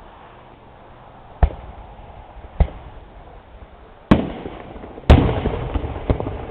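Fireworks going off: five sharp bangs, the two loudest about four and five seconds in, the second of these trailing off in a run of smaller pops.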